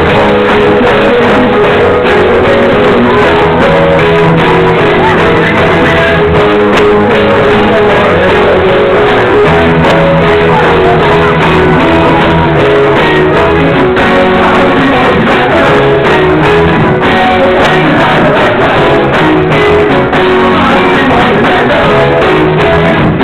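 Punk/oi! band playing live and loud, with electric guitars, bass and drums in a continuous wall of sound.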